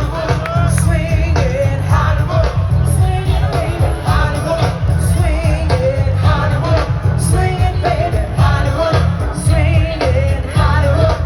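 Music with a singer's voice over a steady heavy bass, played loud.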